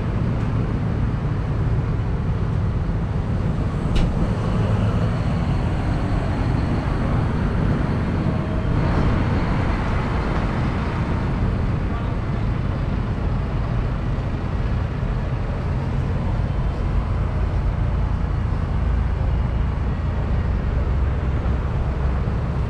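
Outdoor background noise: a steady low rumble with faint voices mixed in, and a single sharp click about four seconds in.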